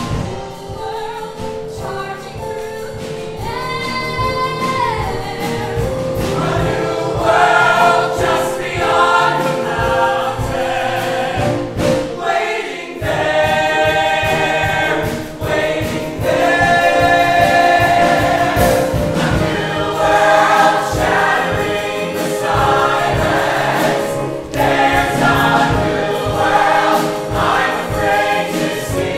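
Musical-theatre ensemble of male and female voices singing together in chorus over instrumental accompaniment. It swells in loudness over the first several seconds and dips briefly near the middle.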